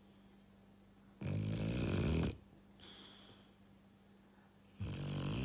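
English bulldog snoring in its sleep: two loud snores, each about a second long and about three and a half seconds apart, with a quieter, faintly whistling breath between them.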